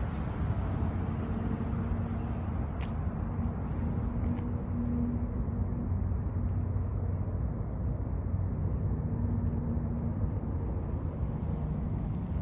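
Steady low rumble of a motor vehicle running, with a faint steady hum.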